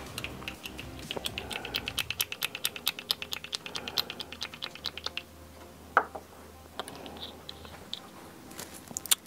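A rapid run of light clicks, about seven or eight a second, for roughly five seconds, then a single louder tap about a second later.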